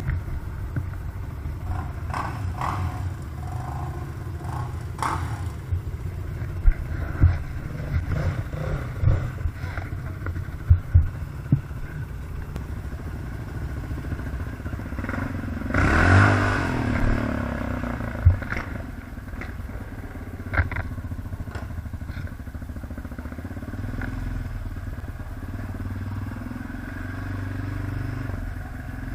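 ATV engine running steadily while riding, with scattered knocks and clatter. There is a brief louder surge about halfway through.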